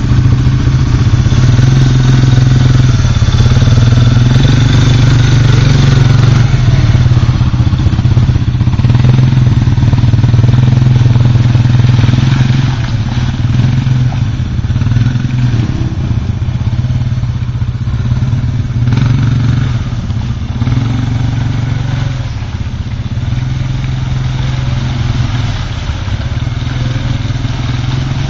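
Suzuki KingQuad ATV engine running steadily at low revs, with small rises and dips in pitch as the quad works through mud; the sound is a little quieter from about halfway on.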